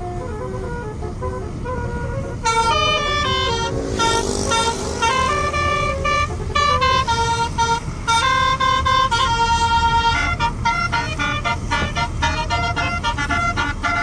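Tour bus's telolet basuri multi-tone horn playing a tune: quick, loud notes that step in pitch several times a second, softer at first and much louder from about two and a half seconds in, over a low rumble.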